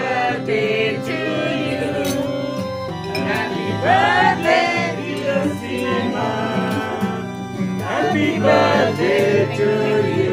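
Nylon-string classical guitar being strummed, with voices singing along; the singing swells about four seconds in and again near the end.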